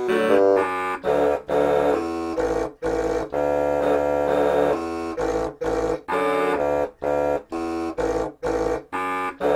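A homemade air-powered keyboard horn instrument, its bottle and PVC-pipe horns fed from a reservoir, playing a tune. The horns sound chords over a low bass in short phrases broken by frequent brief pauses.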